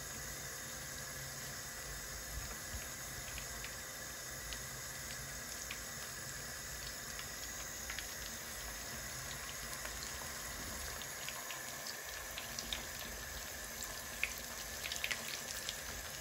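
Thick floured salt-cod steaks frying gently in oil that is kept not too hot: a steady low sizzle with sparse crackles, the pops coming more often near the end.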